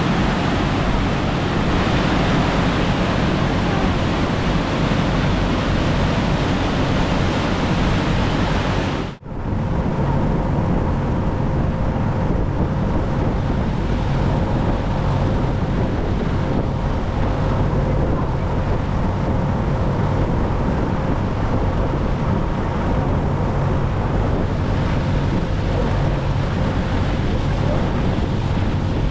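Ferry's churning wake rushing loudly, with wind buffeting the microphone. About nine seconds in the sound drops out for a moment and resumes duller, the ferry's engine hum now faintly steady beneath the wash of water and wind.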